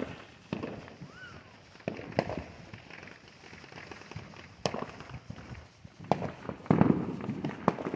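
Distant consumer fireworks and firecrackers going off around the neighbourhood: scattered sharp bangs and pops at irregular intervals, with a louder burst of crackling about seven seconds in.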